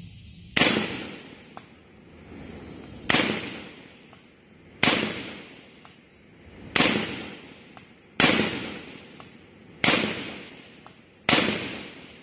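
Seven single rifle shots from a 12.5-inch-barrel AR-15 in 5.56, fired one at a time about one and a half to two seconds apart. Each is a sharp crack followed by a trailing echo.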